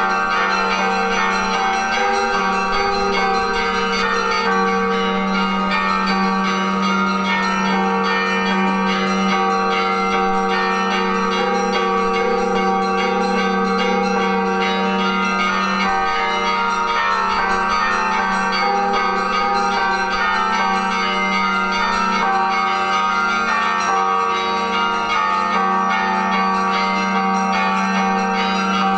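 Church bells ringing a continuous peal, several bells of different pitch sounding over one another at an even loudness, with a low bell tone held underneath.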